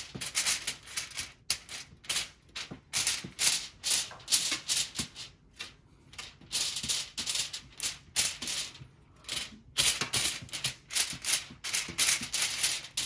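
Metal spoon scraping across aluminium foil as it spreads olive oil, the foil crinkling with each stroke in quick, irregular bursts.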